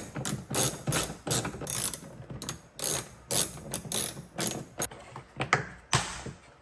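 Hand ratchet clicking in quick repeated back-strokes, about two or three a second, as a trim-panel fastener is driven in.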